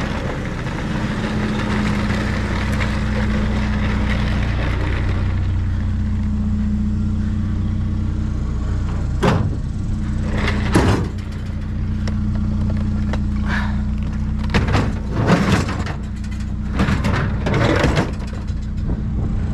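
Truck engine running steadily with a low hum. Several clunks and rattles come over it from about halfway through to near the end.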